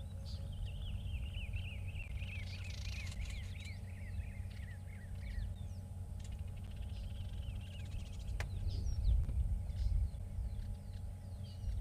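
Southern masked weavers calling: a sizzling 'zick, zick, zick' chatter, a long run of rapid chirps falling in pitch over about five seconds, then a shorter run and scattered single chirps, over a steady low rumble.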